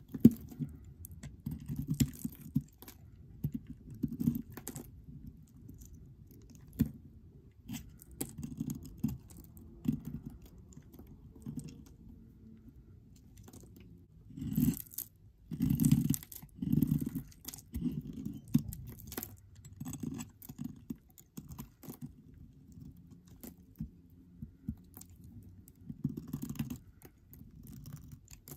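A snap-off utility knife blade shaving curls and flakes off a bar of pink soap: crisp scraping, crackling strokes at uneven intervals, with the loudest run of strokes about halfway through.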